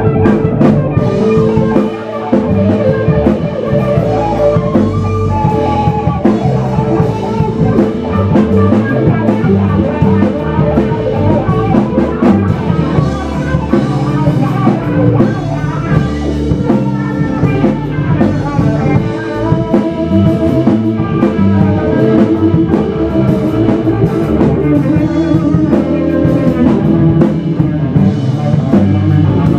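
Live blues band playing loudly: electric guitar, electric bass and drum kit together, with a steady beat.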